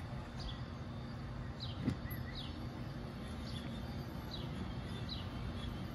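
A bird repeating short, high chirps that fall in pitch, about one or two a second, over a steady low background hum, with a single sharp click about two seconds in.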